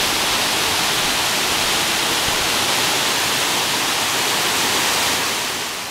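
Waterfall cascading down a rock face into a pool: a steady rushing of water that fades out near the end.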